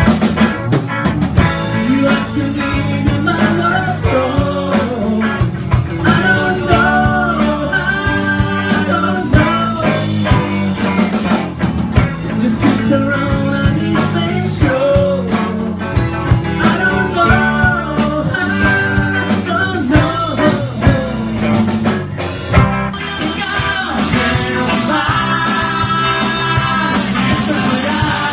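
Live rock band playing loud, with a repeated wavy melodic lead line over bass and drums. About twenty-two seconds in there is a short break, then the band comes back fuller, with a steady hiss of cymbals on top.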